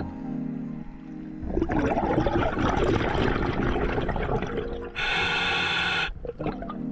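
Scuba regulator breathing underwater: a rush of exhaled bubbles for about three seconds, then about a second of steady hiss from the demand valve as the diver inhales, cut off sharply.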